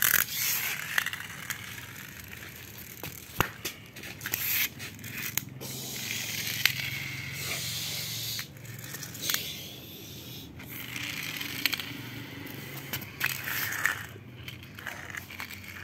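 Small plastic toy fire trucks pushed by hand over rough concrete: the wheels and plastic body scrape and rattle on the gritty surface, with a few sharp clicks.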